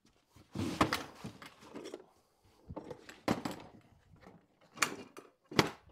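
Someone rummaging through storage boxes and drawers: a string of sharp knocks and bumps, with scraping and rustling between them, as containers are opened and things moved about.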